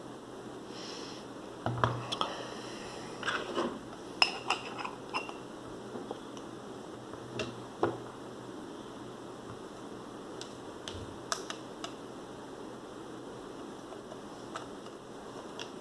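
Small metallic clicks and clinks from a Zorki 1 rangefinder camera being handled, clustered over the first half, then a few scattered ticks; near the end the baseplate locking key is turned to open the camera for film loading.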